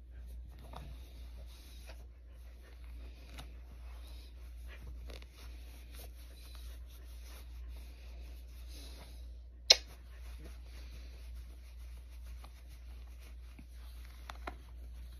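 Hands rubbing a small dog's belly through a soft blanket: faint, continuous fabric rustling and scratching. A single sharp click about two-thirds of the way through, and a couple of smaller clicks near the end.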